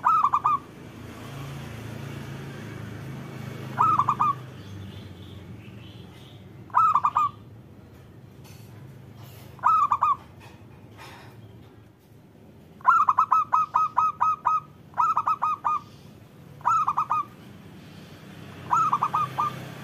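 Zebra dove (perkutut) cooing: short phrases of a few quick staccato notes, repeated every two to three seconds, with one longer run of about eight rapid notes about thirteen seconds in.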